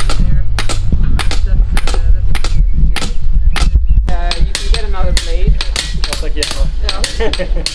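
Several hammers peening scythe blades on small anvils: many sharp metallic taps, several a second, overlapping in no common rhythm. The hammering cold-forges the edge thin.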